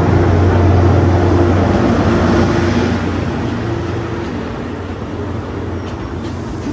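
Diesel train's engine running with a steady low drone, easing off over the last few seconds as the train slows to a stop.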